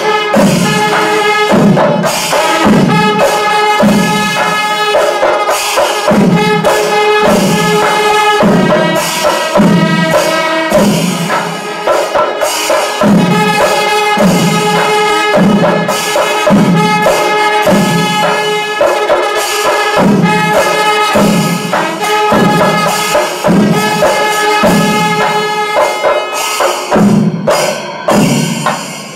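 Panchari Melam temple percussion ensemble in its fourth kaalam (tempo stage): massed chenda drums and ilathalam hand cymbals clash in a steady cycle with a low beat about once a second, under held notes from kombu horns. The pattern breaks up near the end.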